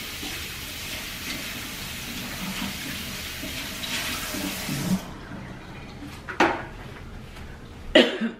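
Kitchen sink faucet running as hands are washed under it, a steady splashing hiss of water that shuts off about five seconds in. Two short knocks follow.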